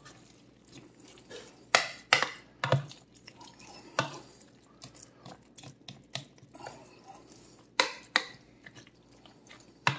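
Metal spoon stirring a wet mixture of shredded chicken, crushed tortilla chips and gravy in a mixing bowl: soft squelching broken by sharp knocks of the spoon against the bowl, a cluster around two seconds in, one at four seconds, two near eight seconds and one at the end.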